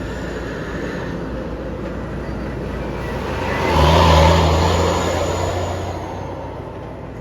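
A bus drives past. Its engine and tyre noise swell to their loudest about four seconds in, with a deep engine hum, then fade as it moves away.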